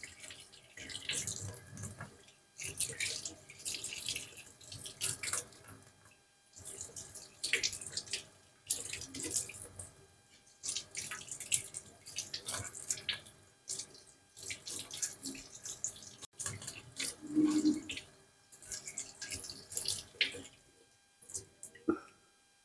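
Kitchen tap running into a stainless steel sink while green vegetables are rinsed under it by hand. The water splashes in uneven bursts, a second or two each, as the stalks are moved through the stream.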